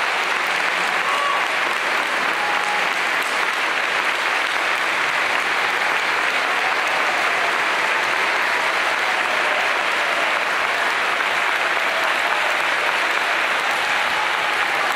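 Large audience applauding: dense, steady clapping that keeps an even level throughout.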